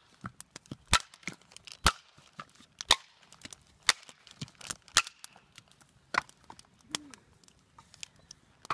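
Dry dead branch being snapped into firewood by striking it down against a rock: a sharp crack about once a second, with lighter knocks in between.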